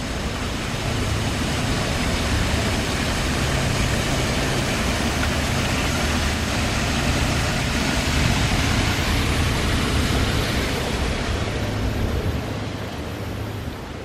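Steady rush of water spilling over a small cascade and running down a shallow stone fountain channel, with a low wavering rumble underneath.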